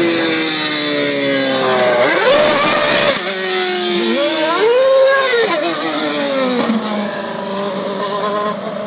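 Aston Martin One-77's V12 engine revving: two sharp blips, about two seconds in and again about five seconds in, with the revs sinking slowly in between.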